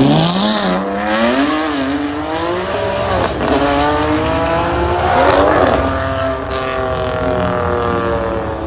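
Ferrari 599 GTB's V12 on a Capristo exhaust with no catalytic converters, accelerating hard. Its note climbs in steps, dropping back between them, with a couple of sharp cracks along the way, then falls slowly over the last few seconds.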